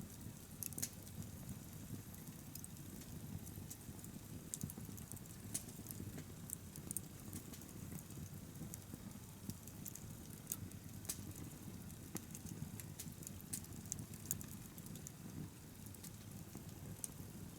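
Wood bonfire crackling, with irregular sharp pops scattered through it over a low steady rumble.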